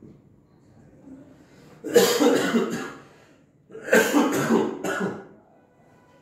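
A man coughing in two fits a little under a second apart, each a quick run of several coughs.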